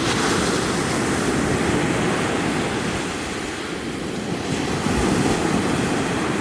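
Ocean surf washing onto a sand beach, swelling, easing off in the middle and swelling again near the end, with wind buffeting the microphone.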